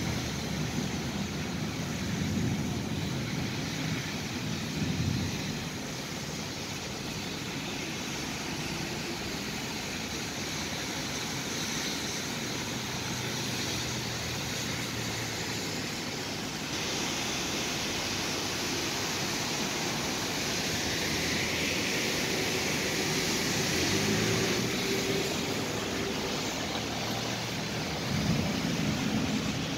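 Cars driving along wet, flooded streets: a steady hiss of tyres through standing water, with engines passing. The hiss grows louder and brighter about halfway through.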